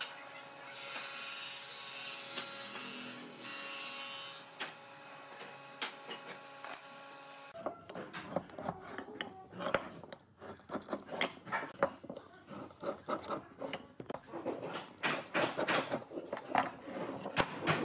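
Hand marking on pine blocks. First comes light pencil-and-square work over a steady hum. From about seven and a half seconds in, a marking gauge scratches and scrapes along a pine block in many quick strokes, with small knocks of wood and tool.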